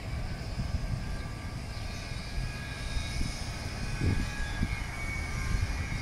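Wind buffeting the microphone outdoors: a steady low rumble with irregular gusts, the strongest about four seconds in.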